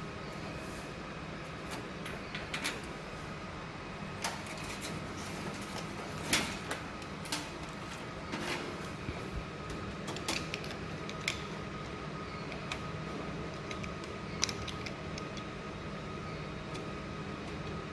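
Steady low hum with a thin whine, with scattered light clicks and taps, the loudest about six seconds in.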